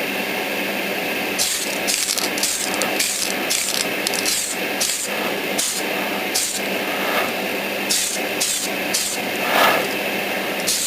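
Aerosol can of white primer spraying in many short bursts, about one or two a second, over a steady background hiss.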